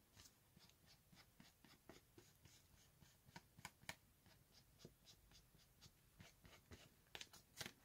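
Faint, irregular soft taps and scuffs of an ink pad being dabbed and rubbed along the edges of a paper envelope, with a few louder taps near the end.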